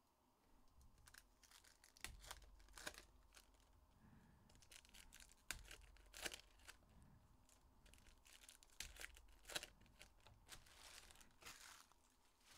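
Faint tearing and crinkling of foil trading-card packs being ripped open, a handful of sharp rips scattered among the rustling, with a longer crinkle near the end.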